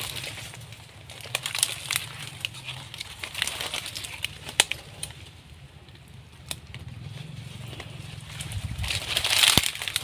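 Dry fronds, twigs and leaf litter rustling and crackling as someone pushes through them, with a few sharp snaps and a louder rustle near the end.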